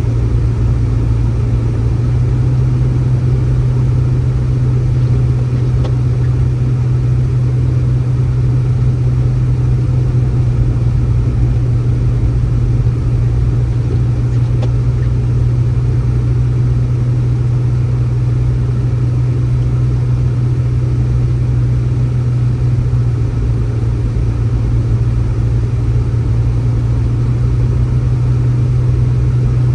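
A steady low mechanical hum over a rumbling noise, unchanging throughout.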